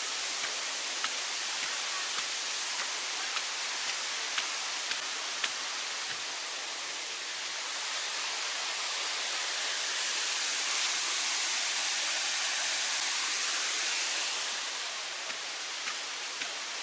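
Rushing water of a mountain stream and waterfall: a steady hiss that swells through the middle and eases off near the end. Light clicks, about two a second, ride on it for the first several seconds.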